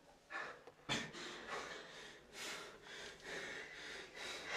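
A person breathing hard in uneven, gasping breaths, with a sharp click about a second in.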